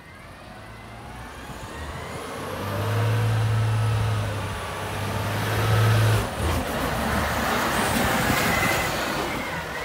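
Compressed-natural-gas rear-loader garbage truck driving up and pulling alongside, its engine growing louder as it approaches, with a rising whine over a deep steady drone.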